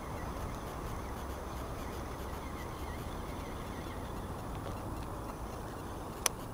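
Steady low outdoor background noise with faint short chirps, then one sharp click near the end from the baitcasting reel being handled.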